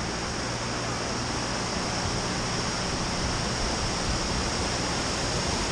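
Steady rush of water pouring over a dam spillway into the river, an even noise with a low rumble that does not change.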